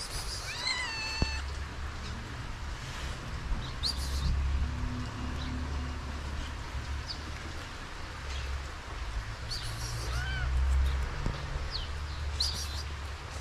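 Calico kitten meowing twice, a longer call about half a second in and a shorter one about ten seconds in, over a steady low rumble.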